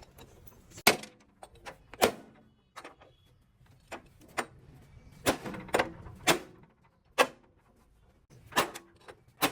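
Irregular sharp knocks and clanks, roughly one a second with uneven gaps, some in quick pairs: hand tools striking and handling parts during repair work.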